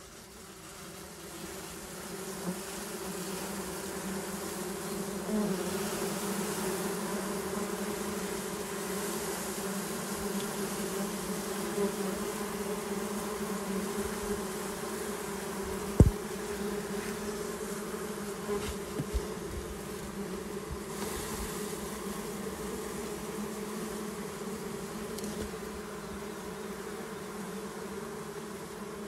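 A cluster of wild honey bees buzzing in a steady low hum, swelling over the first few seconds as they are brushed off their exposed comb by hand. A single sharp knock about halfway through.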